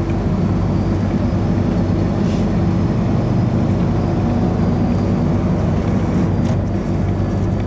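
Heavy lorry's diesel engine running steadily at cruising speed, with tyre and road noise, heard from inside the cab.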